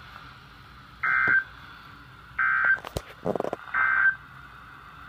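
EAS end-of-message data bursts: three short, identical bursts of SAME digital tone, each about a third of a second and roughly a second apart, marking the end of the alert. A click and a brief rasp fall between the second and third burst.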